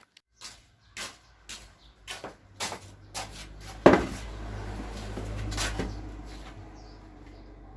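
A run of small plastic clicks and knocks as a motorcycle starter relay is handled and pushed into place, then a louder clack about four seconds in, followed by a low hum that swells and then fades away.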